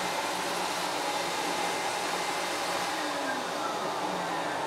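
Metro Vac Air Force Commander pet dryer running on its low speed setting, a steady rush of blown air with a constant hum. About three seconds in, faint falling tones appear over the rush.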